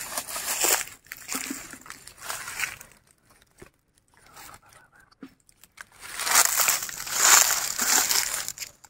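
Dry fallen leaves crackling and crunching, in short bursts for the first three seconds. After a near-quiet few seconds comes a louder, longer stretch of crackling near the end.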